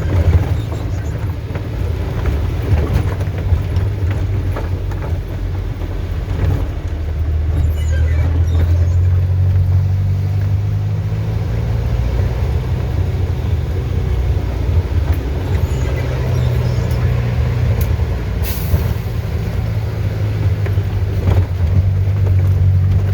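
Truck engine running hard under load as the truck drives at speed up a slippery dirt road, its low hum rising and easing several times as the throttle changes.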